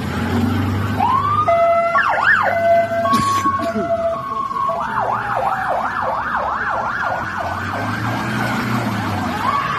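Sirens of passing police vehicles, several overlapping: a long rising wail, a two-tone hi-lo pattern, then a fast yelp from about halfway in, over the low rumble of engines going by.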